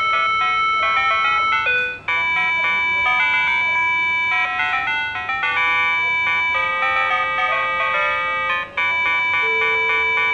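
PATLITE electronic signal-clear annunciator on a railway platform playing its short electronic chime melody on repeat. It signals to a one-man train's crew that the departure signal has cleared, and it keeps sounding as long as the signal stays clear. The melody briefly breaks and restarts about 2 seconds in and again near 9 seconds.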